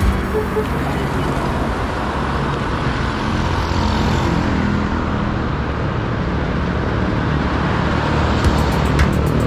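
Steady road traffic noise: cars, vans and motorcycles going by on a street, with a van passing near the end.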